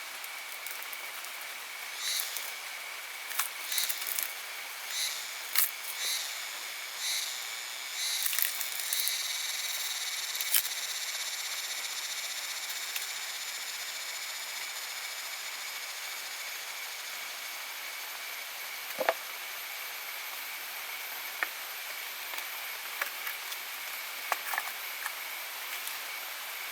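Forest ambience with a steady high insect trill. A run of short repeated animal calls comes in the first ten seconds, then a very high thin whine sets in and holds, with a few scattered clicks.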